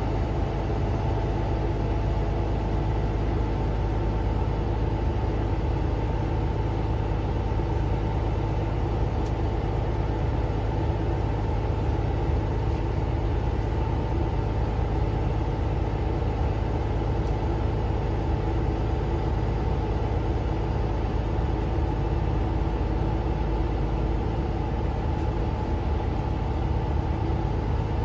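Mercedes-Benz Citaro C2 LE city bus under way, its engine, drivetrain and road noise heard from inside the passenger cabin as a steady low rumble with a constant hum.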